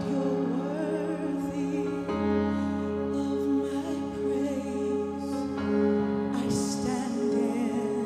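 Slow live worship song: a woman's lead vocal with vibrato over sustained chords that change about two seconds in and again past halfway.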